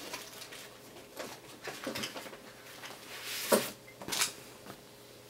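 A few faint, short clicks and rustles from a smartphone being handled and its touchscreen tapped, over quiet room tone. The strongest comes about three and a half seconds in.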